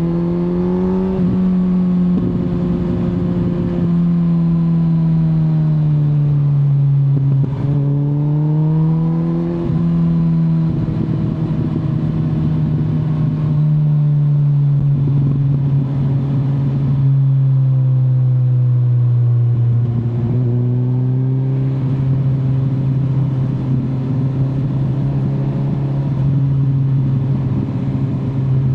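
Kawasaki Z900 inline-four motorcycle engine under way, its pitch rising and falling with the throttle, with a brief break about a third of the way in, a long slow fall, then a step up about two-thirds through, over a steady rush of noise.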